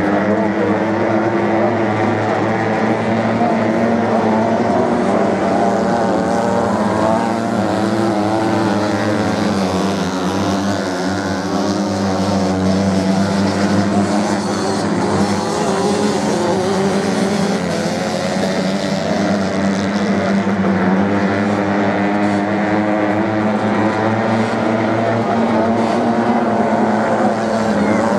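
Several dirt-bike engines racing on a sand course, their pitch rising and falling as riders open and close the throttle through the turns, over a steady engine drone.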